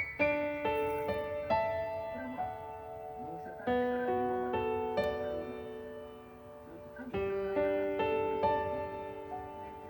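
Background piano music: slow chords and single notes, each ringing on and fading.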